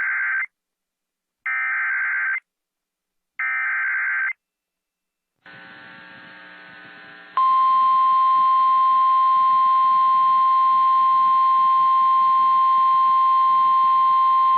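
Emergency Alert System SAME header: three roughly one-second bursts of warbling digital data, about a second apart. After a brief fainter steady sound comes the loud, single-pitch NOAA Weather Radio attention tone, held steady, which signals that a National Weather Service warning is about to be read.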